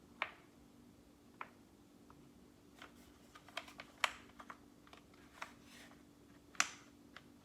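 Plastic clips and parts of an IKEA Vesken shelf being pushed and knocked together by hand: irregular sharp clicks and taps, loudest about four seconds in and near the end. The clips are not yet snapping into place. A faint steady hum runs underneath.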